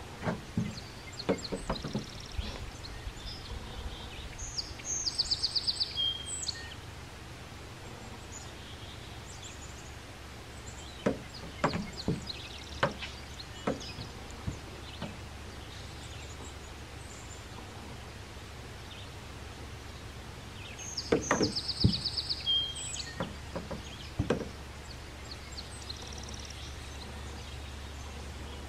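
Scattered knocks and clunks of fishing gear and feet against a small aluminium boat's hull, in three short clusters, over a steady low rumble. A songbird sings the same short, fast, high trill twice, about sixteen seconds apart.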